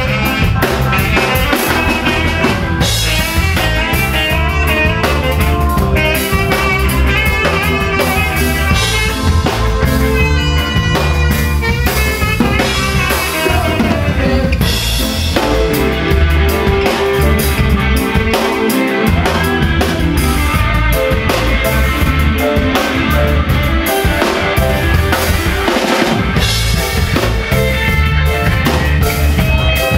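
Live rock band playing loud: drum kit and electric guitar under a lead vocalist singing into a microphone.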